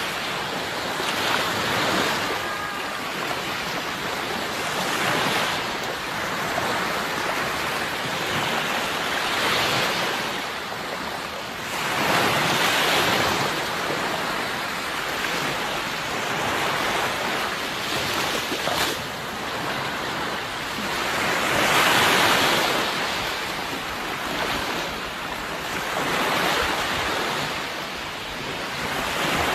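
Sea waves breaking and washing on the shore, rising and falling in surges every few seconds, with two larger waves, one near the middle and one about three quarters of the way through.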